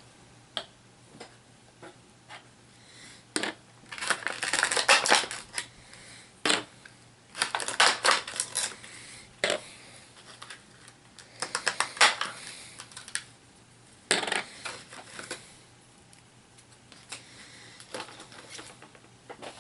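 Plastic HeroClix miniatures and their booster packaging being handled: irregular bursts of clicking, clattering and rustling every second or two, with quiet gaps between.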